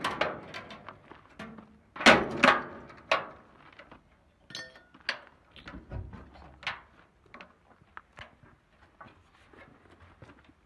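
Sheet-metal side panel of a truck's cargo bed being worked open by hand: a series of metal knocks and clangs, the two loudest about two seconds in, then lighter clicks and rattles as the panel comes loose and drops open on a concealed compartment.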